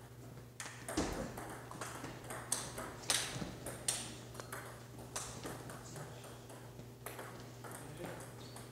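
Table tennis balls being struck by paddles and bouncing on tables during rallies, a string of sharp, irregular clicks from more than one table, over a steady low hum.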